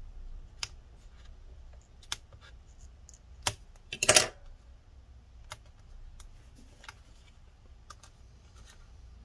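Sharp clicks and taps of a pry tool against a laptop's aluminium case and a glued battery cell, roughly one a second, with a louder short scrape about four seconds in as the cell is worked loose from its adhesive.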